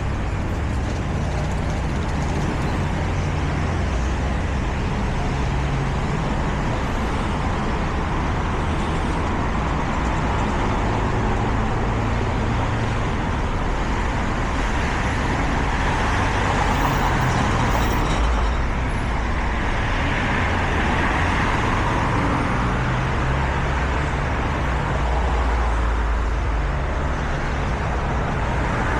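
City street traffic: a continuous mix of car engines and tyre noise, swelling a few times as vehicles pass close by.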